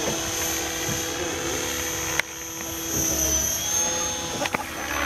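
Radio-controlled model helicopter flying overhead: a steady high whine from its motor and rotor, the pitch wavering as it manoeuvres. The level drops suddenly about two seconds in.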